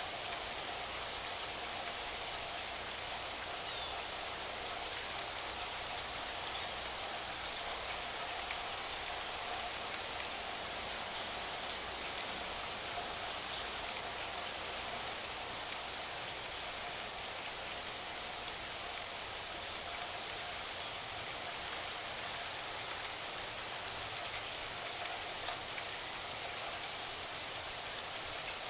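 Steady rain: an even hiss of falling rain with many fine drop ticks, unchanging throughout.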